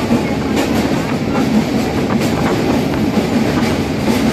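Train running across a steel truss rail bridge, heard from aboard: a steady rumble of wheels on the rails with irregular clacks.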